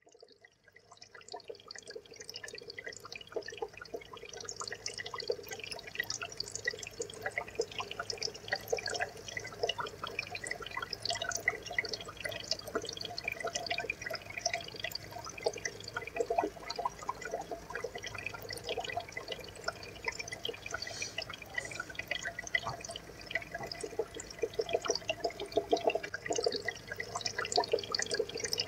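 Aquarium water trickling and bubbling: a dense, irregular patter of small drips and pops that fades in over the first few seconds and then holds steady.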